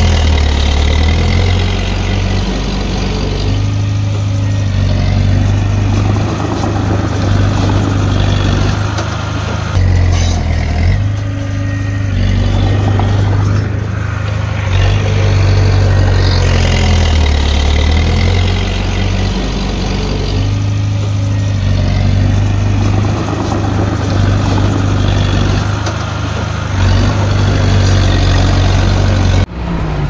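Diesel engine of a Komatsu D30P crawler bulldozer working under changing load, its note stepping up and down in cycles of several seconds. The sound drops off suddenly near the end.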